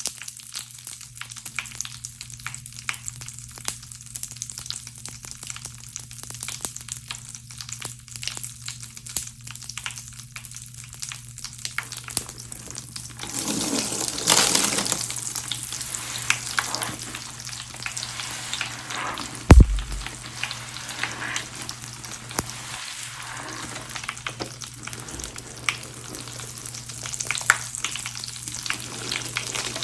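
Bath crackles popping and fizzing in a soapy, Pinalen-soaked sponge, a fine rapid crackle. About twelve seconds in, wet squelching of the sudsy sponge being squeezed takes over, with one sharp knock a few seconds later and a steady low hum underneath.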